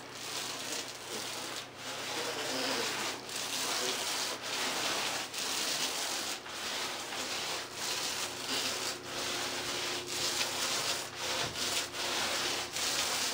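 Paint roller with a half-inch nap rolling wet flat paint across a drywall ceiling: a steady rubbing noise with a light click about once a second.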